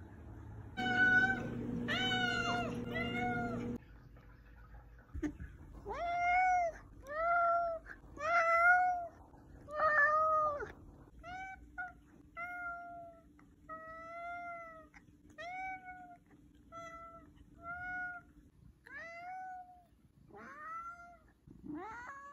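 Domestic tabby cat meowing over and over: about twenty short meows, each rising then falling in pitch. The first few and those in the middle are loud, and the later ones come shorter and softer, about one a second.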